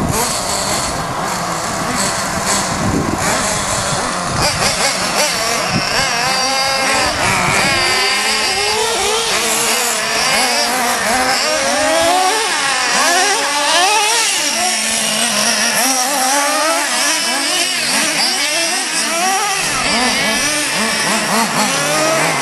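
Radio-controlled cars racing on a dirt track, several motors at once revving up and down, their pitch rising and falling as the cars accelerate and slow.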